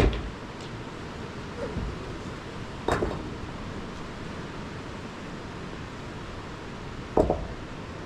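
Three sharp knocks, one at the start, one about three seconds in and one about seven seconds in, with a softer one between the first two, over a steady background hiss.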